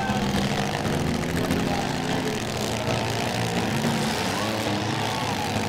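Several stock six-cylinder car engines running and revving at once in a steady, continuous mix, their pitches shifting up and down.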